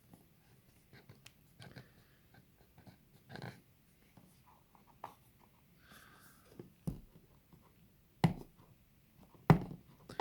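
A phone's retail box being handled: scattered light taps, clicks and rubbing, with two sharper knocks about eight and nine and a half seconds in.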